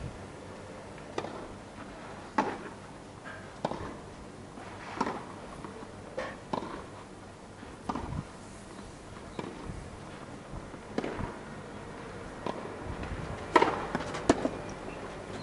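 Irregular sharp knocks, roughly one every second or so over a steady outdoor background, with the loudest pair near the end.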